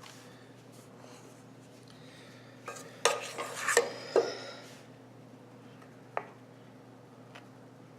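Kitchen utensils clinking and clattering against dishes: a cluster of sharp clinks with a brief metallic ring about three to four seconds in, then a single click a couple of seconds later, over a low steady hum.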